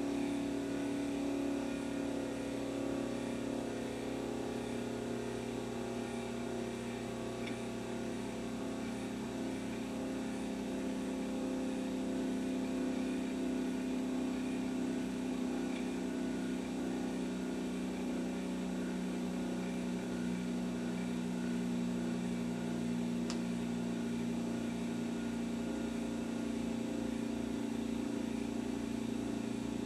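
CNC-machined metal gyroscope spinning on its pivot point: a steady hum whose pitch slowly falls as the rotor loses speed.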